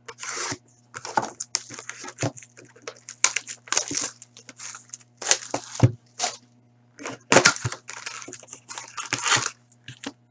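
Wrapping crinkling and tearing in irregular bursts as a sealed Upper Deck Artifacts hockey-card box is unwrapped and its cardboard lid opened. A faint steady electrical hum runs underneath.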